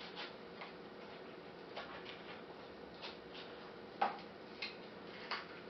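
Kitchen knife slitting open the side of a large green bajji chilli: faint, irregular crisp ticks as the blade cuts through the skin, the clearest about four seconds in. A faint steady hum lies under them.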